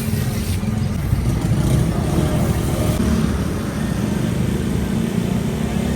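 Steady low rumble of motor traffic on a city street, with a vehicle engine running close by.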